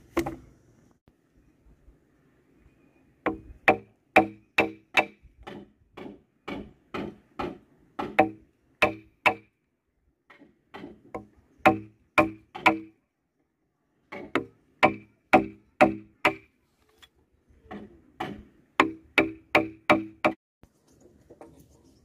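Repeated blows striking wood, about two to three a second in runs of several seconds with short pauses between, each blow ringing briefly with a pitched tone.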